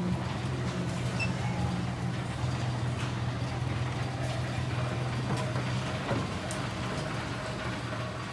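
Miniature park train running: a steady engine drone with a few light clicks.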